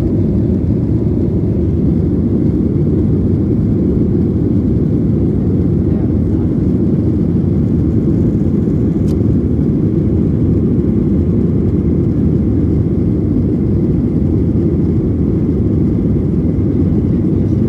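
Steady low roar inside the cabin of a Boeing 737-800 climbing after takeoff: its CFM56-7B engines and the airflow past the fuselage, heard from a window seat.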